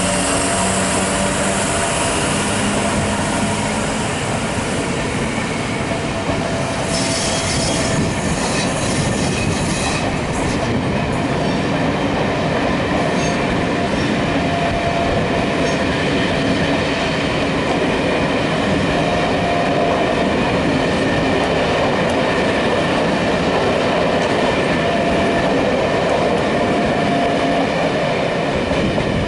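Passenger coaches hauled by a Class 86 electric locomotive rolling steadily past: continuous wheel-on-rail noise with clickety-clack over the rail joints and intermittent squealing tones from the wheels.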